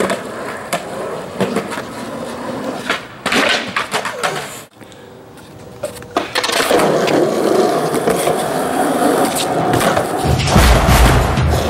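Skateboard wheels rolling on smooth concrete, with sharp clacks as the board is popped and lands during flatground tricks such as kickflips. Near the end a booming, rhythmic bass beat of music comes in.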